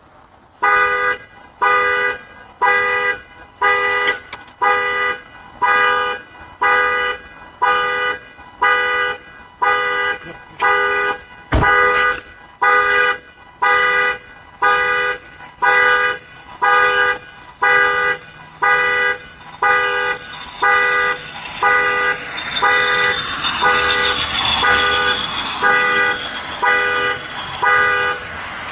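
Car alarm going off: a two-tone car horn honks in a steady pattern, about once a second, over and over. There is one sharp knock near the middle, and a rising rush of noise builds under the honks in the last few seconds.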